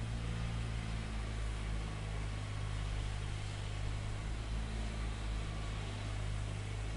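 Steady low mechanical hum over an even hiss, unchanging throughout, with a fainter higher tone that comes and goes.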